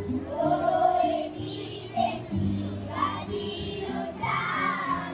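Children's choir singing in unison, accompanied by a guitar playing a low, note-by-note line under the voices.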